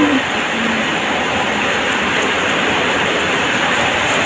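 A steady, loud rushing noise with no rhythm or breaks.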